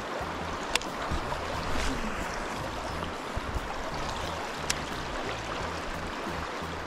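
Steady rush of river water, with two sharp clicks, about a second in and again near five seconds.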